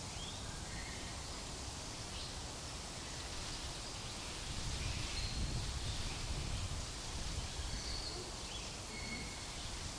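Steady background ambience of an indoor zoo ape enclosure, a low hiss with a few faint, short high chirps scattered through it. A low rumble swells in the middle and then eases off.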